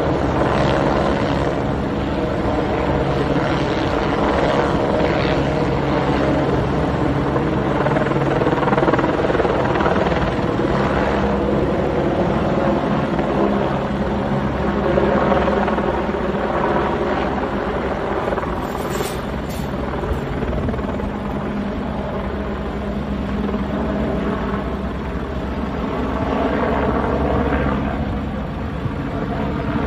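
Helicopter flying overhead: a steady drone of rotor and engine.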